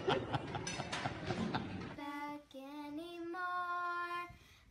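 Busy room noise with clatter and voices, then, about two seconds in, a toddler's voice singing a few long held notes that step up and down.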